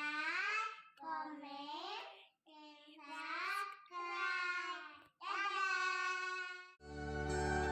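Young girls' high voices chanting in a sing-song way, in five short phrases with pauses between them. Music comes in just before the end.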